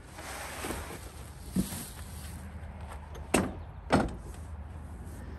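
Handling noise from a portable generator's small caster wheels: a soft rustle, a dull knock about one and a half seconds in, then two sharp clacks about half a second apart.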